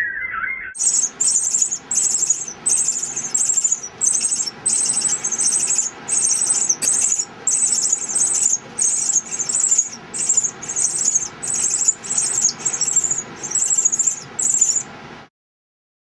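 Pearly-eyed thrasher nestlings begging at the nest as they are fed: thin, high squeaky calls repeated about twice a second, cutting off abruptly near the end.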